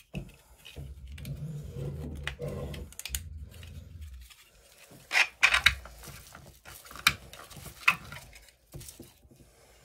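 Hands unwrapping a mold from its packaging: a low rubbing rustle for the first few seconds, then a handful of sharp crinkles and clicks.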